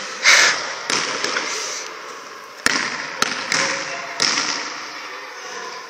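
Basketball bouncing on a hard gym floor: several irregular thuds, each echoing around the sports hall.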